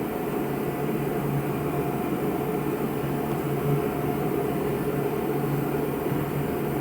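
Electric arc welder laying a continuous bead on a steel pipe fitting, a steady crackling sizzle over an electrical hum.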